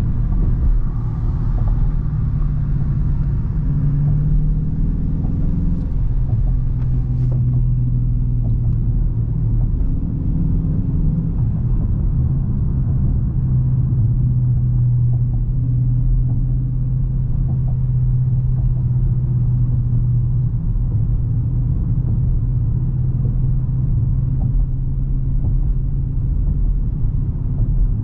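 Dodge Charger R/T's stock 5.7-litre V8 running at a steady cruise, a deep, even drone. The engine note steps down in pitch about six seconds in, then holds steady.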